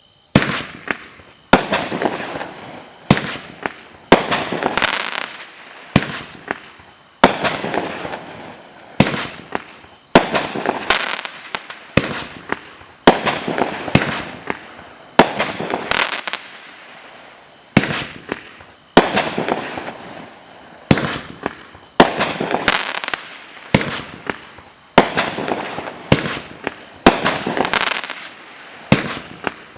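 Pyro Packed PP5480 'Comin' in Hot' 44-shot consumer firework show-in-a-box firing, starting suddenly: a sharp report about once a second, each followed by about a second of dense noisy trail, with the next shot coming before it fades.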